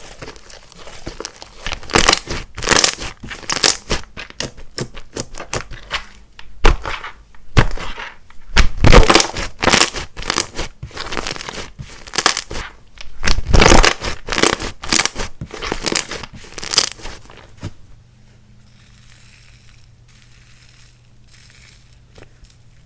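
Hands squeezing, stretching and pressing clay-mixed slime, making a dense run of sticky crackles, pops and snaps. A little over three-quarters of the way in the handling stops and only a faint low hum remains.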